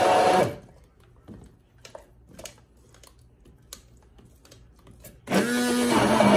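Hand blender motor running, then switched off about half a second in and winding down; a few seconds of light knocks and taps follow. About five seconds in the motor starts again, rising quickly in pitch and then running steadily as it purees a thick coriander-leaf paste.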